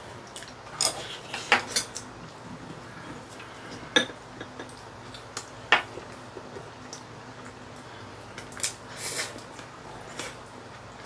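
Chopsticks clicking and knocking against ceramic bowls and plates as two people eat, a scatter of short, sharp clinks at irregular moments, the sharpest about one and a half, four and six seconds in.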